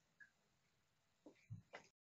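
Near silence: faint room tone with a few soft short knocks about a second and a half in, then the sound cuts out completely.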